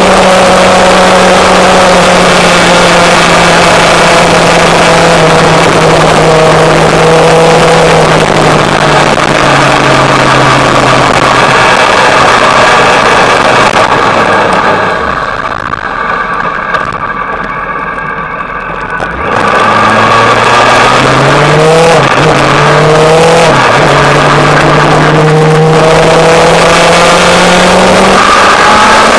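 Motorcycle engine under steady wind rush: the engine note sinks slowly as the bike slows, and the sound drops for a few seconds past the middle. The engine then pulls away, climbing in pitch through two quick upshifts, and settles into a steady cruise.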